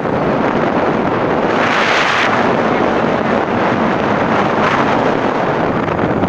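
Wind buffeting the microphone: a loud, steady rush, with a brighter gust about two seconds in.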